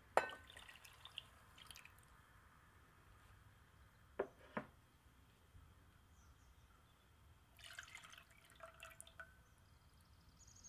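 Faint sound of milk, then melted butter or ghee, pouring from a glass jug into a stainless steel saucepan. There is a sharp click near the start and two more around the middle.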